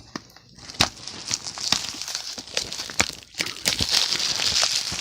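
Plastic packaging on a Blu-ray case crinkling and rustling as it is handled, with several sharp clicks and snaps; the crinkling grows denser in the second half.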